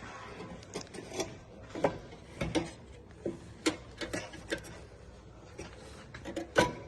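Irregular metallic clicks and knocks of a car's rear brake caliper and its bolts being handled and fitted back over the brake disc, with a louder knock near the end.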